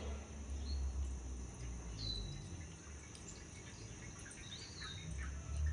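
Water poured from a plastic jug into a metal pot. Birds give short falling whistles twice over a steady high insect drone.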